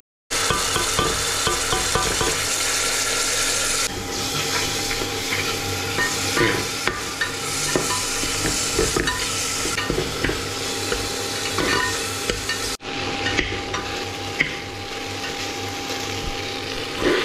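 Onions and spices sizzling in oil in an aluminium pot, with a metal spoon stirring and scraping against the pot's sides and bottom. The sound breaks off abruptly and resumes twice, at about 4 s and 13 s in.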